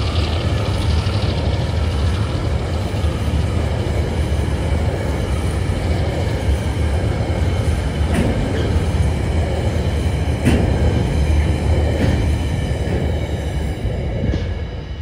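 Empty coal hopper wagons of a freight train rolling past at close range: a steady rumble of steel wheels on the rails with a few sharp clacks over rail joints. It fades as the last wagon passes near the end.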